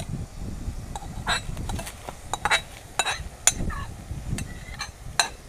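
Metal spoon clinking and scraping against a bowl as saltfish is scraped out into the cooking pot, with about seven irregular sharp clinks.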